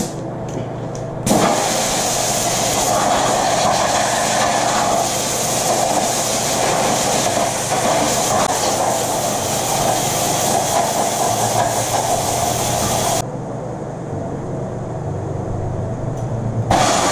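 Compressed air hissing hard from a hand-held air nozzle in one long blast of about twelve seconds. It cuts off sharply, then starts again near the end.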